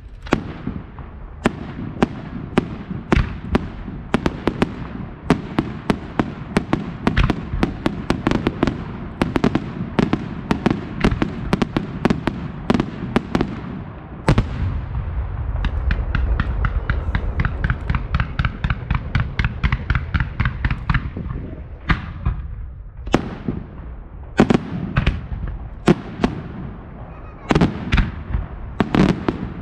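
Fireworks display: a quick string of sharp bangs that thickens, a little under halfway in, into a dense unbroken run of reports, then thins out to separate loud bangs near the end.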